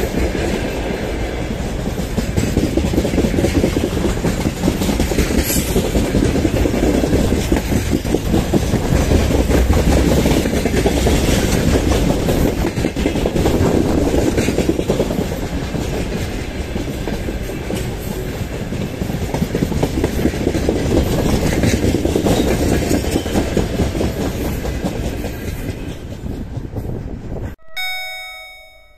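Long train of open coal wagons rolling past on the broad-gauge track, a steady heavy rumble with the clatter of wheels over the rail joints. Near the end it cuts off abruptly and a repeated electronic ringing begins.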